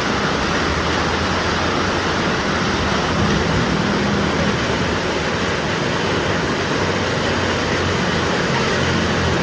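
Heavy rain falling in a steady hiss, with a vehicle's low hum underneath.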